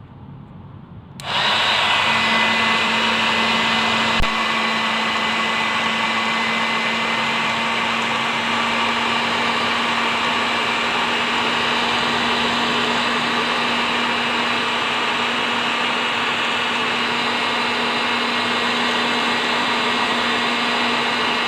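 Homemade mini vacuum cleaner, a small 3.7 V battery motor spinning a salvaged hair dryer fan blade, switched on about a second in and running steadily: an even fan whoosh over a steady motor hum. A single click about four seconds in.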